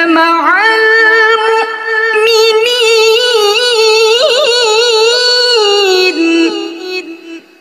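A woman reciting the Qur'an in the melodic qiro'ah (tilawah) style, holding long notes with wavering melismatic ornaments that climb and fall in pitch. The phrase ends shortly before the end.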